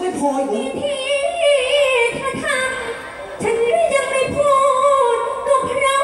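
A woman singing a likay song through a stage microphone: one high voice holding long, wavering, ornamented notes that bend up and down.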